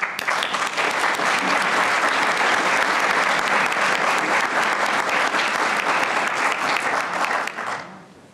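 Audience applauding, a dense crackle of many hands clapping that starts suddenly and dies away near the end.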